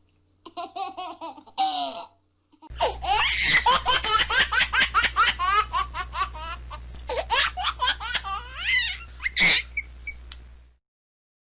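Young children laughing and giggling in quick bursts of high-pitched laughter, with a short pause about two seconds in, a louder stretch of laughter after it, and a shriek near the end before the sound stops abruptly.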